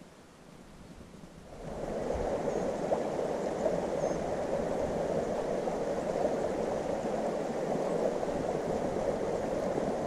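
Steady rushing of running water, like a mountain stream, that rises in sharply about two seconds in after a quieter start.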